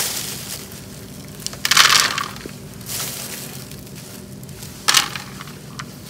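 Hands scooping gritty potting soil mixed with akadama clay granules out of a plastic bag and dropping it into a hard plastic planter: crunching and rustling, loudest about two seconds in, with a short sharp crunch near five seconds.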